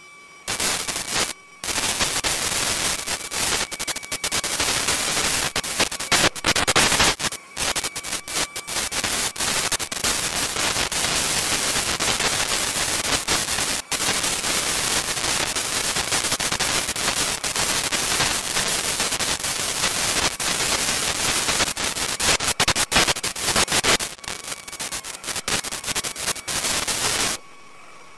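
Loud crackling static on the camera's audio track, full of rapid stuttering pops, with a few brief breaks, cutting off suddenly near the end to a faint steady whine. It comes with blocky break-up of the picture: interference on the camera's recording, which the uploader puts down to extraterrestrial interference.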